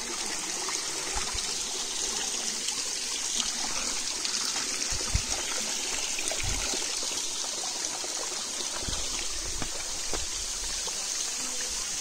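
Thin stream of water trickling and splashing down between boulders at the foot of a small waterfall, a steady hiss.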